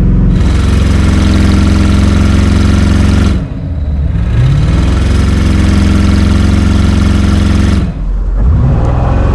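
Audi RS6's twin-turbo V8 on its stock exhaust, held at the launch-control rev limit with the brake on: the revs hold steady for about three seconds, drop briefly, climb and hold again, then drop and climb once more near the end.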